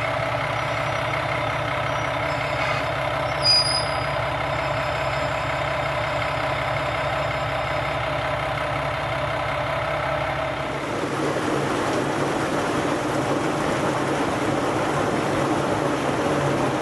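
Diesel railcar engine running with a steady hum, with a brief high-pitched squeal about three and a half seconds in. About ten seconds in the hum gives way to a broader, rougher rumble of an approaching diesel express train.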